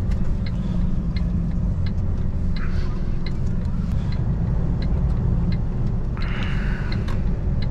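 Iveco truck's diesel engine and road noise as a steady low drone inside the cab, with a light tick repeating about every 0.7 seconds, typical of the turn indicator while going around a roundabout. A short hiss comes about six seconds in.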